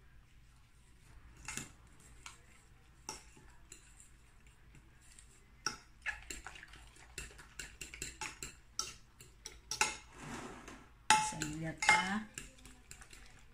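Metal fork beating raw eggs in a glass dish, clinking against the glass. There are a few scattered taps at first, then a quick, steady run of clinks from about six seconds in.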